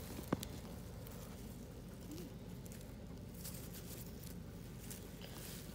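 Faint rustling in grass over steady low background noise, with one sharp click a fraction of a second in.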